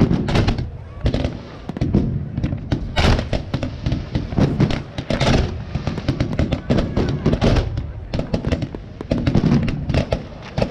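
Fireworks display in full flow: a dense, unbroken barrage of bangs and pops from bursting shells, with crackling that is busiest about three and five seconds in.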